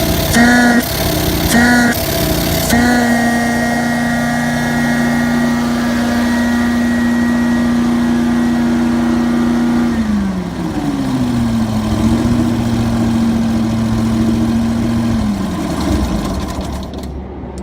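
Prochem Blazer XL truckmount carpet-cleaning machine running on its Vanguard 18 hp V-twin engine with a steady pitched whine. For the first few seconds the sound pulses on and off in short bursts. About ten seconds in the pitch drops and climbs back, then drops again near the end.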